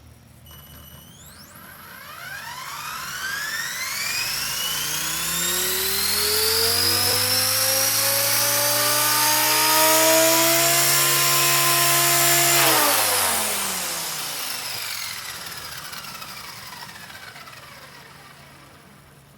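Blade 180 CFX electric RC helicopter's brushless motor and rotor head spooling up on the ground: a whine of several pitches rises steadily over several seconds, holds steady for about five seconds, then winds down and fades after the motor is cut. This is the first start, at only about two-thirds power.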